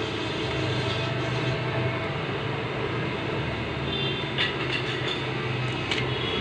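Steady low mechanical rumble with a hum underneath, and a few light clicks about four and six seconds in.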